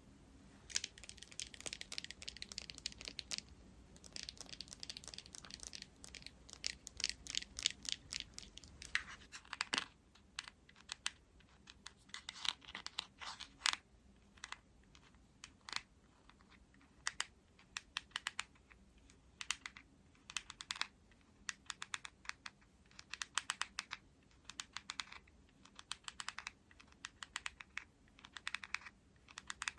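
Close-miked skincare ASMR sounds: quick runs of crackly, sticky tapping and clicking, each run lasting a second or two, with short pauses between.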